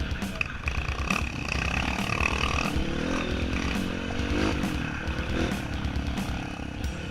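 Off-road trail motorcycle engine running, its pitch rising and falling with the throttle around the middle, over a choppy low rumble.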